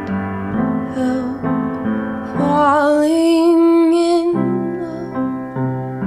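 Background music: a slow piano song with a singing voice, one long note held in the middle.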